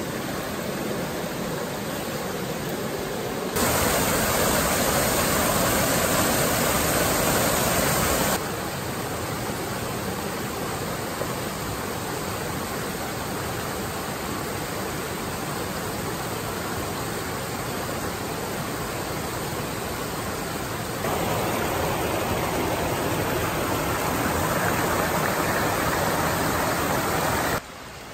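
Rushing water of a small forest stream tumbling over rocks and small cascades, a steady rush. It grows louder a few seconds in, falls back after about eight seconds, rises again past twenty seconds and drops off sharply near the end.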